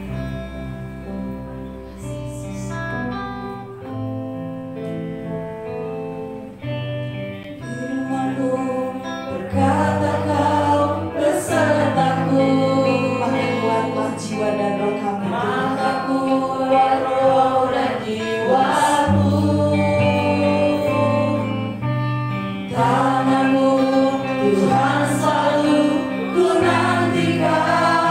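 Church worship band performing a slow praise song: several voices singing in Indonesian over keyboard, electric guitars and drums. It starts softer, and the full band and voices come in louder about nine seconds in.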